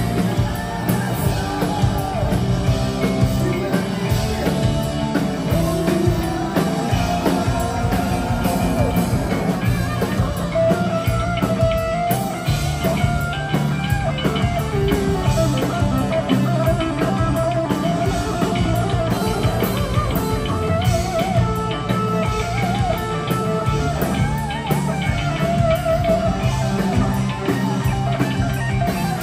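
Heavy rock band playing live and loud: distorted electric guitars, bass and a drum kit, heard from the audience.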